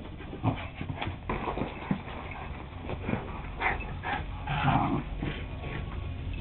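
Young puppy making a few short, soft whining and yipping noises while playing, the fullest of them a little past the middle.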